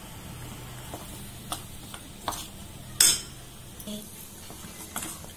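Metal spoon stirring chopped compound chocolate in a steel bowl over a double boiler as the pieces begin to melt, with a few clicks and scrapes of the spoon against the bowl, the loudest about three seconds in.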